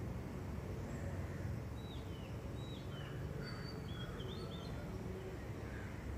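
Small birds chirping in a string of short high notes, several dropping in pitch, through the middle few seconds, over a steady low background rumble.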